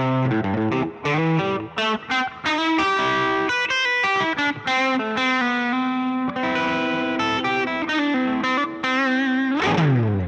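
Electric guitar played through a Hotone Ampero II Stage multi-effects unit on its "Soulful Rhythm" factory preset: chords and short riffs with some quick chopped notes, ending in a slide down in pitch.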